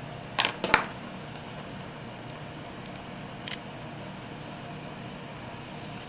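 A few sharp metallic clicks from handling a small cabinet deadbolt lock and tool while its set screw is reinstalled: two close together about half a second in and one more about three and a half seconds in, over a steady low hum.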